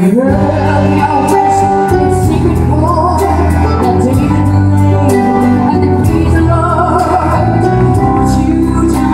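A woman singing live into a microphone over amplified backing music, with a steady bass line and regular cymbal hits; her held notes waver with vibrato.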